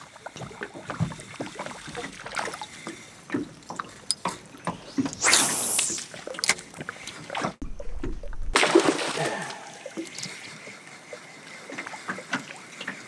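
Water splashing from a topwater frog lure skipping and landing across a creek surface, with many small ticks and splashes. There are two louder rushing splashes, one about five seconds in and another about nine seconds in, just after a brief break in the sound.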